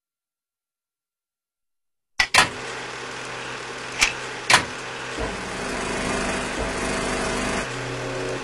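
A steady mechanical running noise with a low hum. It starts abruptly after about two seconds of silence and is broken by several sharp clicks or knocks, two close together at the start and two more about two seconds later.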